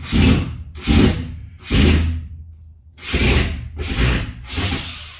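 Six rough scraping or rasping strokes, each with a dull low thud beneath it, spaced about one a second and trailing off near the end.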